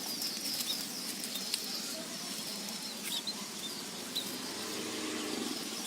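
Faint, thin chirps of small birds, sparrows, a few times over a steady outdoor hiss.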